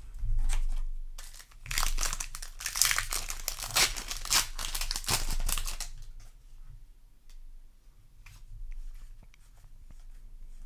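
A Magic: The Gathering Play Booster's foil wrapper being torn open and crinkled for about four seconds, followed by faint clicks of cards being handled.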